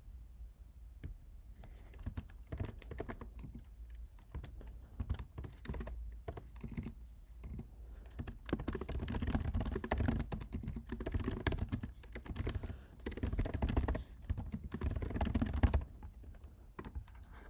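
Typing on a computer keyboard: quick runs of keystrokes, sparse at first, then coming in dense, louder bursts over the second half.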